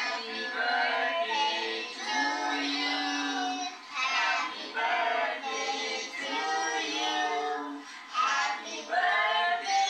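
Children singing together, with women's voices among them, played back through a television's speakers so the sound is thin and has no bass.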